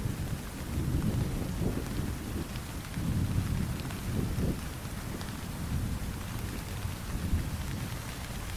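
Steady rain falling, with scattered droplets, under distant thunder. The deep rumble of the thunder swells twice in the first half and then eases off.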